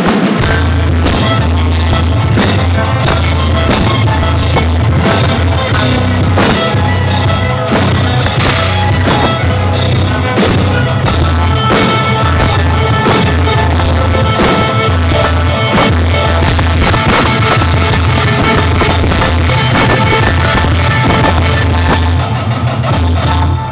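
Live rock band playing loud, with drum kit, electric guitar and a heavy bass line, heard through the room; the music breaks off briefly near the end.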